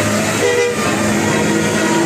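Bus telolet horn of the 'basuri' kind, a multi-tone melodic air horn, playing a tune of held notes. A short higher note comes about half a second in, and lower notes follow, all over a steady noisy background.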